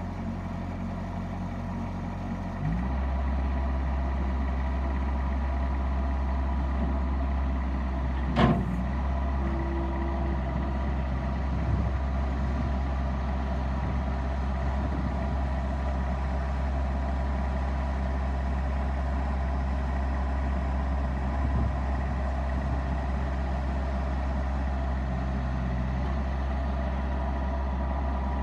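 Bobcat S175 skid steer's diesel engine running steadily, stepping up to a higher, steady speed about three seconds in. A single sharp click or knock about eight seconds in.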